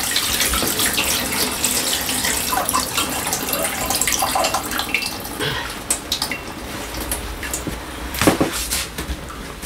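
Kitchen tap water running into a sink, splashing, until about six seconds in; then a few light clatters and one louder knock near the end.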